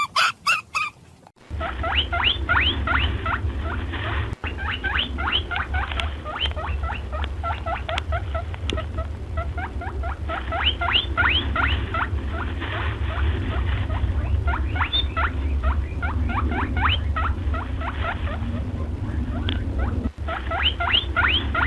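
Rabbits squeaking: runs of short high squeaks that each rise in pitch, several a second, with brief pauses between runs, over a steady low hum.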